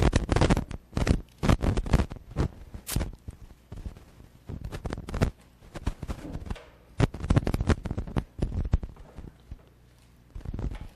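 Microphone noise: irregular clicks, knocks and rustling as a Bible's pages are turned near the preacher's microphone. The sound thins out to near quiet a little before the end.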